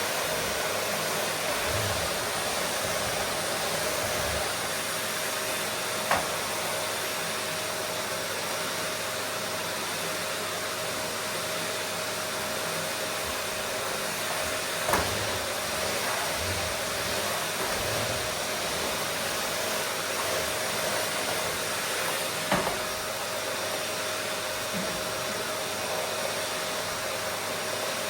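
Vacuum cleaner running steadily: an even rushing hiss with a constant motor whine beneath it. Three short clicks are spread through it.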